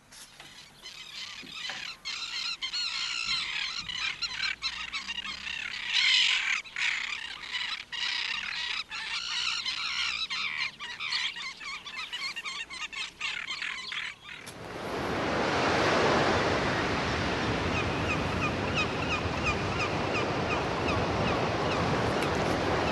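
A flock of birds calling densely, many overlapping high calls, cut off abruptly about two-thirds of the way in. It is replaced by a steady rushing noise, over which a quick series of high chirps repeats near the end.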